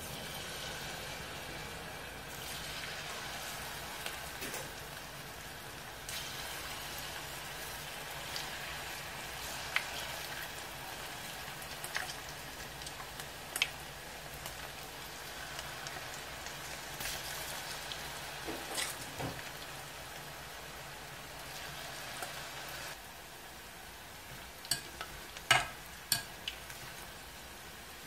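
Battered dried pollack strips deep-frying in a pan of hot oil: a steady sizzling hiss with scattered crackles and pops. A few sharper clicks stand out near the end.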